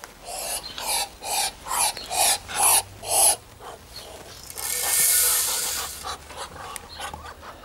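Muscovy ducks hissing at close range: a quick run of about seven short, breathy puffs in the first three seconds, then one longer rush of breathy noise about five seconds in.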